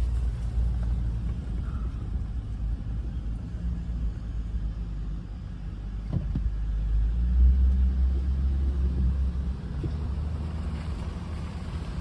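Car driving, a steady low rumble of engine and road noise that swells for a couple of seconds past the middle, with a brief knock partway through.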